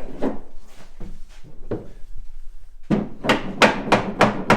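Wooden wardrobe panels being knocked into their slots: a few scattered knocks, then from about three seconds in a fast run of sharp wooden knocks, roughly three a second.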